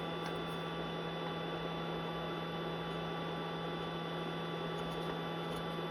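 Wood lathe running steadily: an even electrical hum with a faint high whine and no cutting heard.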